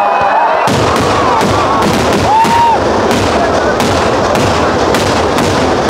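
Festival fireworks going off: from about a second in, a dense run of sharp bangs and crackle over the voices of the watching crowd.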